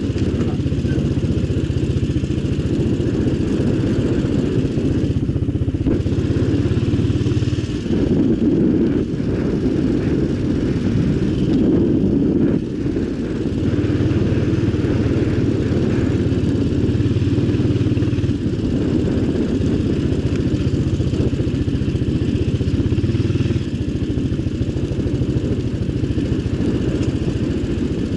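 All-terrain vehicle (quad) engine running hard under way. The engine note strengthens and eases several times as the throttle is worked, with noticeable drops about eight and twelve seconds in.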